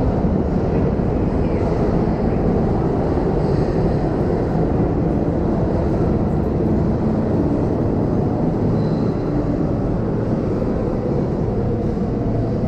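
Steady low rumble of a subway station, holding an even level with no distinct knocks or voices standing out.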